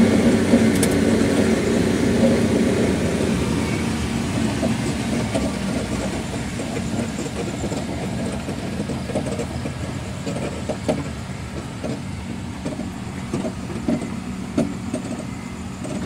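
A vehicle's engine running with road noise as it drives up a rough road, slowly getting quieter, with a few short knocks in the second half.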